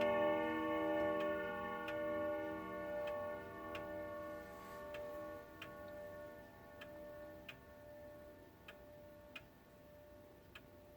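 1987 Colonial of Zeeland grandfather clock ticking after striking twelve, while the ring of the last strike fades away over several seconds.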